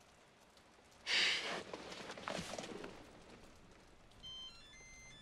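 Short breathy rustles of clothing and breath as two people hug, loudest about a second in and again around two and a half seconds in. A few sparse high music notes come in near the end.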